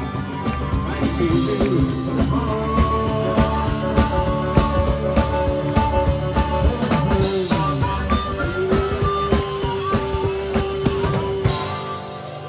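Live blues band playing: an amplified harmonica wails long, bending notes over upright bass, acoustic guitar and drums. The level drops near the end.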